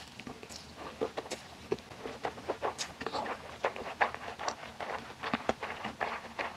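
Close-miked chewing of a mouthful of spicy noodles: a steady, irregular run of wet mouth clicks and smacks.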